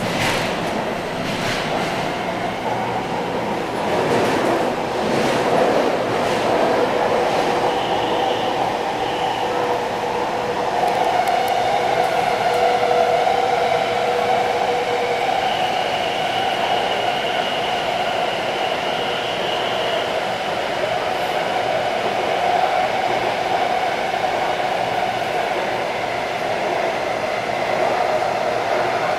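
Taipei Metro C341 train running between stations, heard inside the car: a steady rumble of wheels on rail with the whine of its Siemens IGBT-VVVF traction inverter and motors. A few clicks come in the first several seconds.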